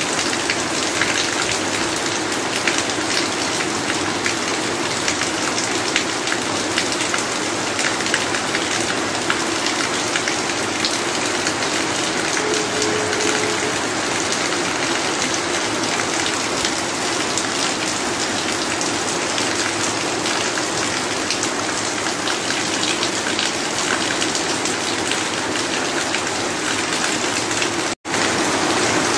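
Heavy rain drumming on a corrugated tin roof: a steady, dense patter with no let-up. The sound cuts out for an instant near the end.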